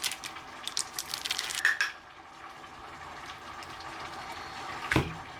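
Wet, sticky clicks of a spoon scooping thick sour cream into a measuring cup, then a soft steady noise and a single sharp knock about five seconds in.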